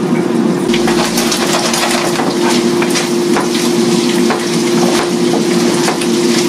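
Prawns sizzling and crackling in hot oil in a frying pan as they brown, stirred with a wooden spatula. A steady hum runs underneath.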